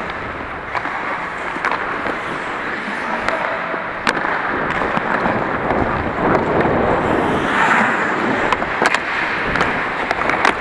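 Ice skates scraping and carving on the ice during hockey play, with scattered sharp clacks of sticks and puck.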